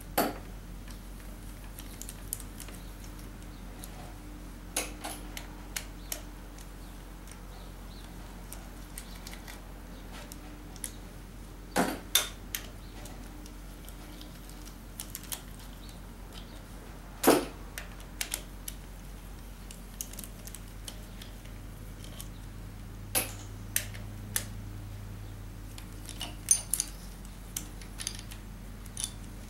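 Scattered metallic clicks and clinks of hand tools and small engine parts being handled during a rotary engine teardown, with the sharpest knocks about 12 and 17 seconds in, over a low steady hum.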